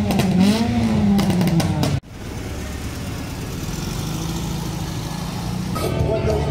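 A motorcycle engine revving up and down for about two seconds, then, after a cut, a steadier low engine sound running at idle.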